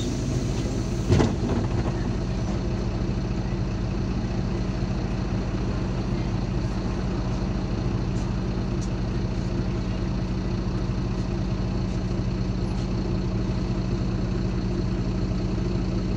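MAZ 203 city bus's diesel engine idling steadily while the bus stands at a stop, heard from inside the passenger cabin. There is one sharp knock about a second in.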